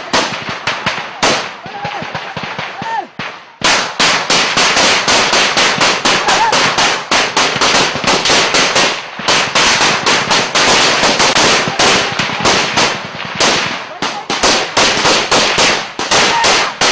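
Gunfire in battle: scattered shots at first, then from about three and a half seconds in, heavy automatic small-arms fire, several shots a second, with short lulls.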